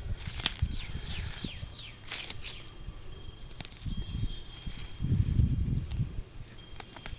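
Small birds chirping, many quick high down-slurred notes and a few short whistled ones. A low rumbling noise comes in about four seconds in and again around five to six seconds.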